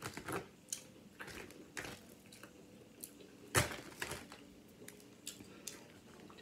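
Crispy breaded onion rings crackling as they are handled and pulled apart by hand: a run of short, irregular crunches and clicks, the loudest about three and a half seconds in.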